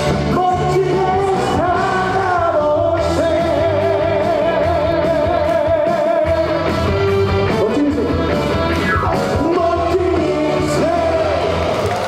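A trot singer singing live over a loud band backing track, holding one long note with vibrato a few seconds in.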